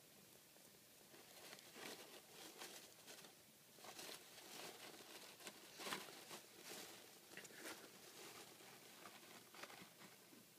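Hedgehog rummaging in loose wood-shavings bedding: faint, irregular rustling and crackling, a little louder around two, four and six seconds in.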